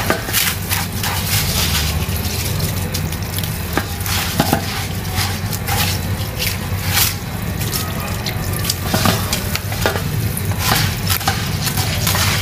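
Raw rice being washed by hand in water in a plastic bowl: grains rubbed and swished in quick, irregular scrapes and splashes, over a steady low hum.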